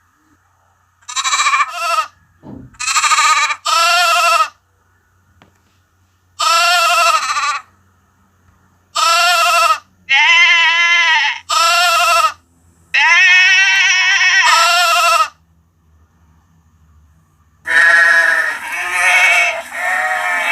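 Sheep bleating high baas, about ten separate calls with short silences between them, each with a quavering pitch. Near the end several bleats overlap into a denser stretch.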